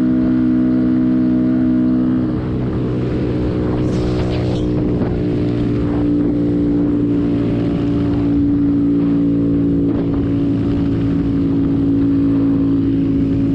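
Small 125 cc single-cylinder mini motorcycle engine running steadily at cruising speed, with wind noise from riding. About two seconds in the engine note shifts to a slightly different pitch.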